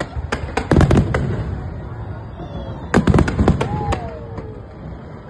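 Fireworks exploding in two volleys of rapid sharp bangs, one under a second in and another about three seconds in.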